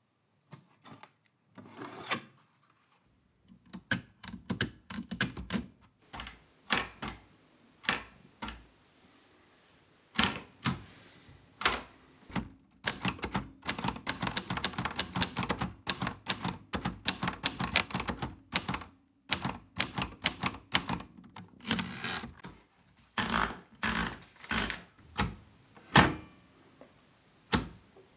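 Paillard Hermes Baby portable typewriter being worked, its keys clacking. Scattered single strokes come first, then quick runs of typing in the second half.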